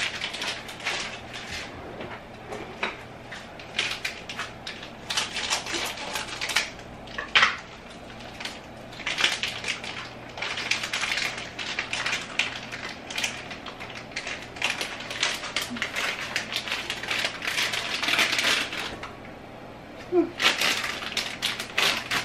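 Crinkling and rustling of a plastic bag of sweet preserved radish being handled and opened, in irregular bursts with short pauses, with a few light clinks of kitchenware.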